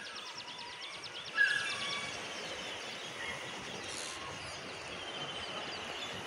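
Quiet outdoor ambience with small birds calling: a fast, high ticking trill for the first second or two, a short louder chirp about a second and a half in, and fainter chirps later.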